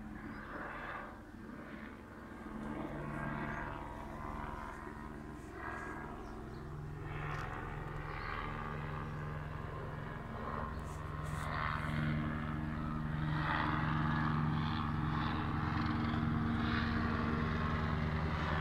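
A helicopter flying overhead: a steady engine and rotor drone that grows louder as it comes closer.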